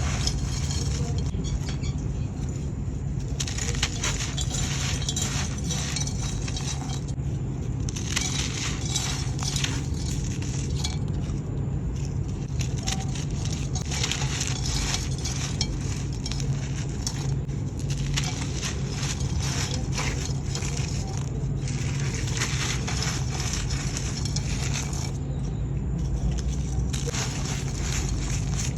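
Dry, grainy sand-cement clay chunks being crumbled: crisp crunching and crackling in spells of a few seconds with short pauses between, over a steady low hum.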